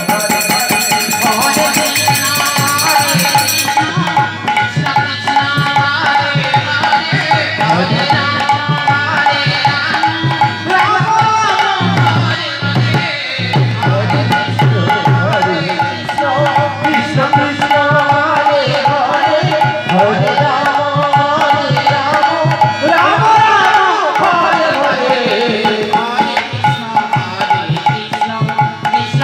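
Khol, the Bengali clay barrel drum, played by hand in a dense, continuous flow of kirtan strokes, with deep bass tones from the large head and sharp ringing slaps from the small head.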